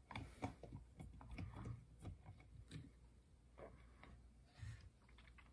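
Faint, irregular small clicks and ticks of an Allen key turning a screw tight in an aluminium extrusion frame.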